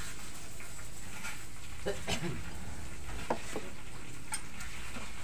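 Food frying in a large wok: a steady sizzle, with a few scrapes of the spatula stirring against the metal pan.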